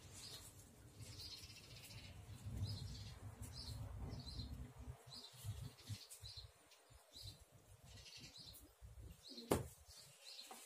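A bird chirping over and over, short high chirps a little under two a second, with one sharp click about nine and a half seconds in.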